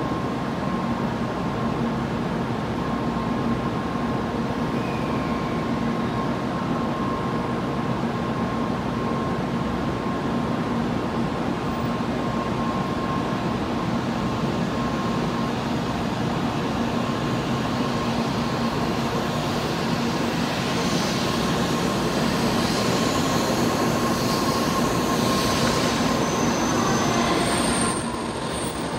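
N700 series Shinkansen train at the platform with a steady electrical hum. From about twenty seconds in, a rising whine and rushing noise build as it starts to pull out.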